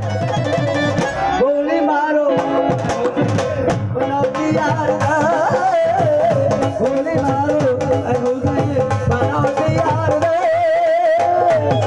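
Live Punjabi folk song, amplified through a PA: a male voice sings a wavering, ornamented melody over a steady hand-drum beat, with the dhol as the drum.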